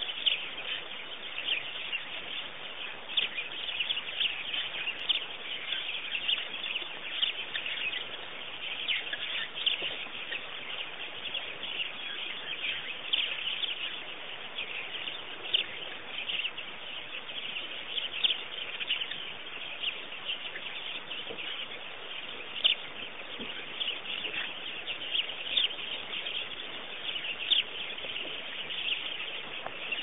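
A chorus of birds: many short, high chirps and calls, several a second, over a steady background hiss.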